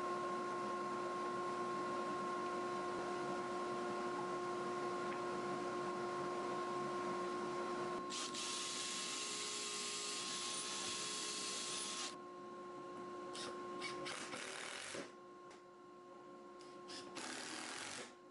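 Cordless drill boring pilot holes into MDF, a steady hiss about eight seconds in that lasts some four seconds, then short runs of an impact driver setting screws near the end, over a steady shop hum.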